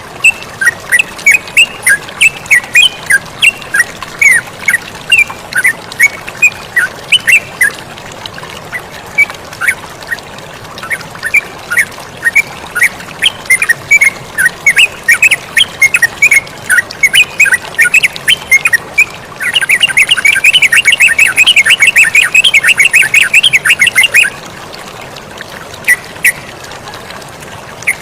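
Yellow-vented bulbuls (terucukan) calling in a long series of short, quick chirps, breaking into a dense, rapid chattering run about twenty seconds in that lasts some five seconds. A steady hiss of running water sits underneath.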